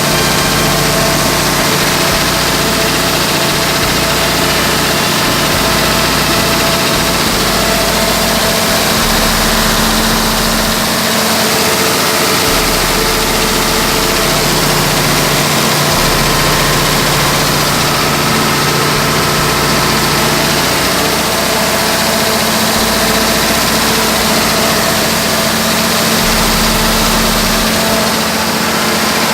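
Isuzu 6BD1 inline-six diesel engine running steadily at a constant speed.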